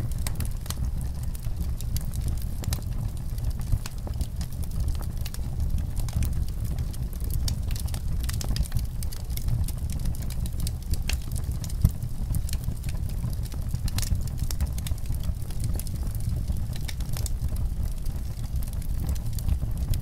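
Fire burning, with a steady low rumble under frequent crackles and pops; one pop just past the middle stands out louder than the rest.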